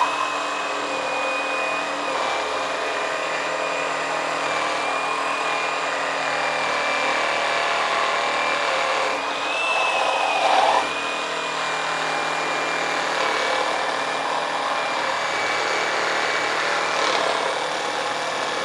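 HILTI SR 6-A22 22-volt cordless reciprocating saw running continuously as its used blade cuts through a thick wooden beam, with a steady high whine over the rasp of the blade. There is a brief louder surge about ten seconds in.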